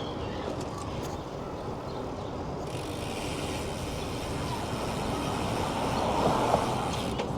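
Steady city traffic noise heard from a moving bicycle, with a hiss of wind and rolling. It swells briefly about six seconds in, as a vehicle passes close by.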